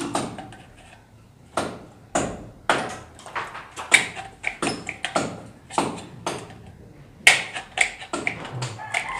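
Sharp metallic clicks and taps of galvanized steel ceiling framing channels being handled and fitted, in an irregular series of about two a second.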